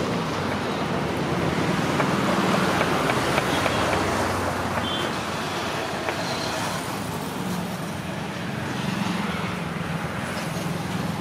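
Road traffic going past: a steady rushing noise that swells twice as vehicles pass.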